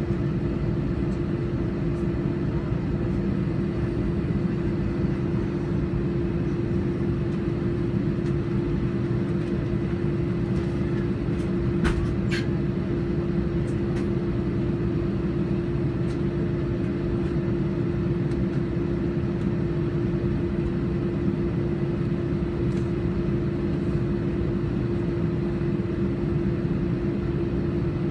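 Airbus A321 cabin noise while taxiing: the engines at idle and the cabin air make a steady hum over a low rumble. Two sharp clicks about twelve seconds in.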